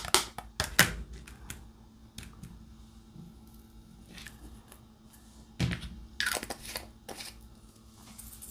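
Light handling of diamond-painting materials: a quick run of clicks at the start, a quiet stretch, then a few crinkles and knocks about two-thirds of the way through, like a plastic cover sheet and a drill tray being moved.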